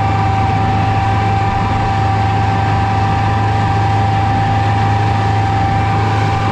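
Fishing boat's engine running steadily under way: a constant low hum with a steady high-pitched whine over it.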